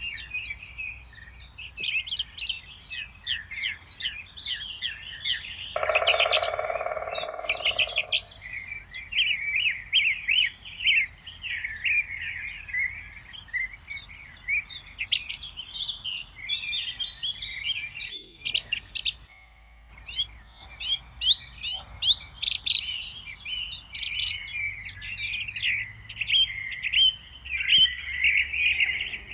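A dense chorus of small songbirds singing and chirping over one another, with rapid high notes overlapping throughout. About six seconds in, a steady pitched tone lasting roughly two seconds sounds beneath the song.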